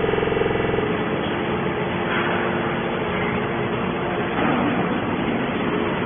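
Steady loud machinery noise. A humming tone with overtones stops about a second in, and a dense, even din carries on.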